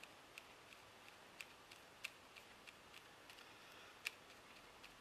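Faint, irregular light clicks and ticks of a paintbrush being worked over a painted card jigsaw piece. The loudest come about two seconds and four seconds in.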